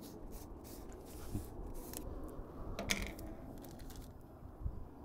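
Plastic jar of marshmallow creme being handled and opened: a series of faint clicks and scrapes, the sharpest about three seconds in.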